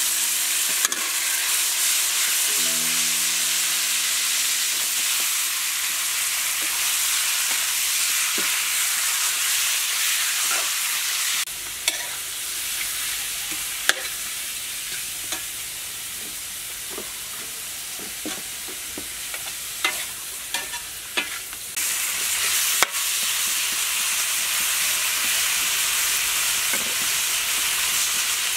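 Food frying in hot oil in a wok, sizzling loudly while a metal spatula stirs and scrapes; minced garlic is frying with fish sauce just added, and later chicken pieces. The sizzle drops back for about ten seconds in the middle, where sharp clicks and scrapes of the spatula stand out, then comes back loud.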